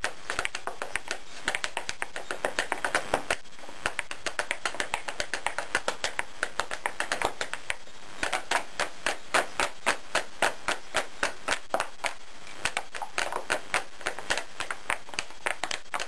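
Step dancers' shoes tapping out quick, rhythmic steps on a hard stage floor, unaccompanied, about five or six taps a second, with short breaks about four and eight seconds in.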